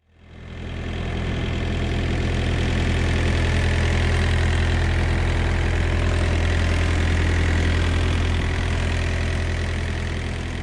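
Refrigerated semitrailer's diesel refrigeration unit running steadily at idle.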